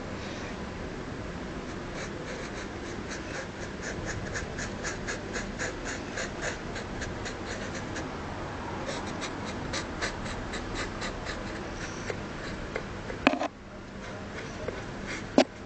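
Marker scribbling on a plastic mask in quick, even strokes, about four a second, as the lips are coloured in. Two sharp knocks come near the end.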